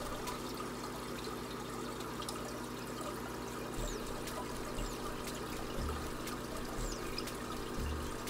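Aquarium air curtain bubbling: a steady rush of fine air bubbles streaming up through the tank water.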